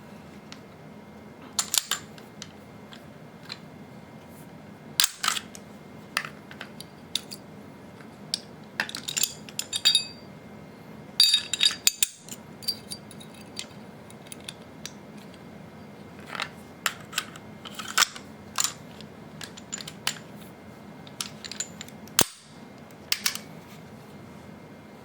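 Sig P229 pistol being field-stripped and put back together by hand: irregular metallic clicks and clacks of the slide, takedown lever and parts, with quick runs of clicking at about 9 and 11 seconds in.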